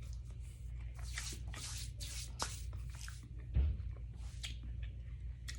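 Wet eating sounds, short smacks and clicks of chewing and handling food, with one low thump about three and a half seconds in, over a steady low hum.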